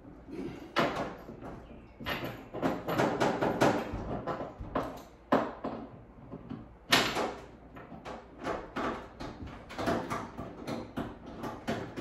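Irregular knocks, taps and scrapes of hardware against the wood cabinet and the over-the-range microwave's metal mounting parts as the unit is lined up and fastened under the cabinet, with a few sharper clunks among them.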